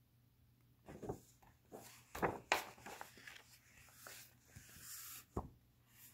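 A hardcover picture book being handled and its page turned: a run of paper rustles and soft knocks starting about a second in, with a sharp tap near the end.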